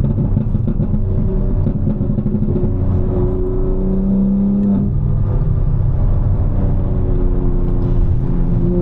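750 hp tuned BMW M4's S58 twin-turbo straight-six running under light load in traffic, a steady engine drone whose pitch rises and falls a little.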